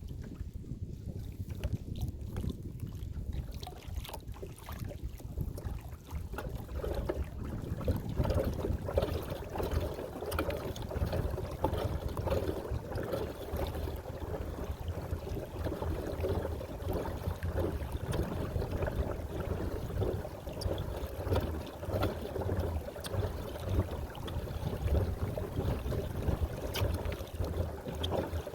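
Water washing and trickling along the hull of a Bonafide P127 pedal-drive kayak under way, with wind rumbling on the microphone. The wash grows louder about six seconds in and then stays steady.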